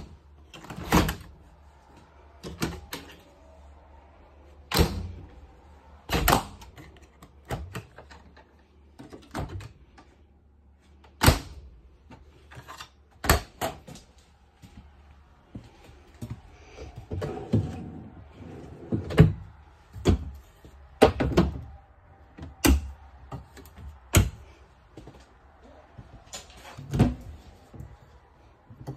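RV refrigerator and kitchen cabinet doors being opened and shut one after another: a string of sharp latch clicks and door thunks at irregular intervals, with some softer rattling partway through.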